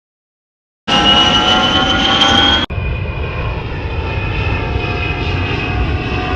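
Airplane engine sound effect. A loud rumble with a slowly rising whine starts about a second in, then a sudden cut a little before three seconds in gives way to a steadier engine drone.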